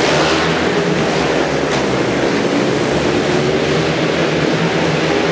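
Speedway motorcycles racing on a dirt oval, their 500 cc single-cylinder methanol-burning engines giving a loud, steady engine note.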